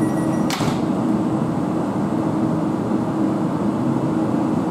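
Steady low hum of a Class 450 Desiro electric multiple unit standing at the platform with its onboard equipment running, with a faint held tone in it. A single sharp click about half a second in.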